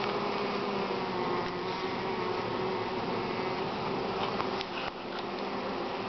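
A honeybee swarm buzzing steadily as its cluster is shaken off a branch into a wooden hive box, with a few light knocks near the end.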